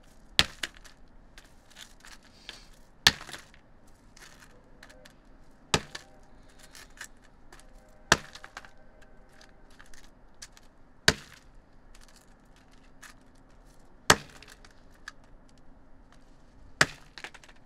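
A hammer strikes chunks of glazed ceramic tile lying on cardboard, giving sharp cracking blows about every three seconds, the first two close together. Small clinks of fragments shifting come between the blows.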